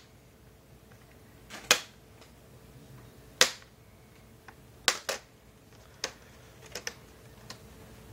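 Plastic screen bezel of an Asus U52F laptop being pried off, its retaining tabs snapping loose one at a time: sharp clicks every second or two, two in quick succession about five seconds in.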